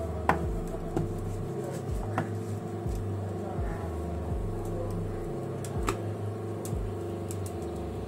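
Wooden rolling pin rolling chapati dough on a wooden board, with a few sharp knocks, over a steady machine-like hum in the room.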